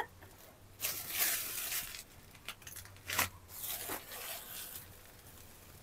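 Black plastic wrapping and tape on a broom handle being cut and peeled off, crinkling and tearing in several short bursts with one sharper snap about three seconds in.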